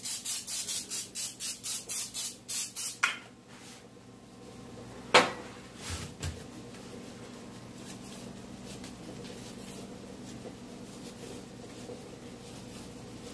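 Aerosol cooking spray hissing in quick short bursts, about four a second for roughly three seconds, then a single sharp knock a couple of seconds later, with a couple of soft thumps after it.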